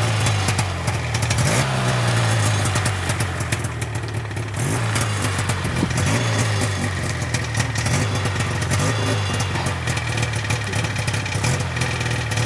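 Snowmobile engine running steadily under way, with a brief rise in pitch about a second and a half in.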